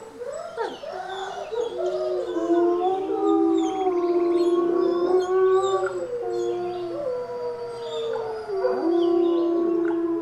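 A wolf pack chorus-howling: several long howls at different pitches are held over one another, with shorter wavering howls and yips breaking in during the first second or two.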